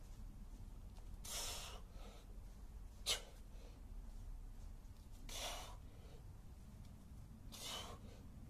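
A man breathing hard under exertion during kettlebell cleans and goblet squats with a 32 kg bell: three forceful, noisy exhales a few seconds apart, and one short sharp sound about three seconds in.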